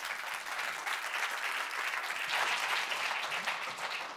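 An audience applauding, a steady clapping of many hands.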